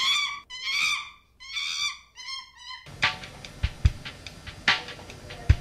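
A cat meowing, about three drawn-out calls, then about three seconds in, music with a drum kit starts.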